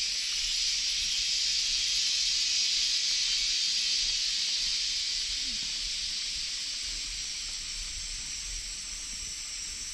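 Steady rush of water flowing from the spring-fed pool into the stream that feeds the waterfall, a smooth hiss that eases off slightly about halfway through.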